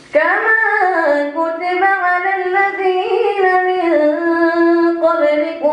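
A boy's voice chanting Quran recitation in the Moroccan style into a microphone: one long melodic phrase that begins abruptly after a pause, its pitch held and bending, with a short break near the end.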